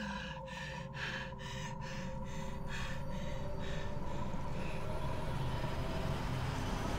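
A young woman's rapid, panting breaths through the mouth, about two to three a second, which die away after a few seconds. Underneath run a steady high ringing tone and a low rumble that slowly swells.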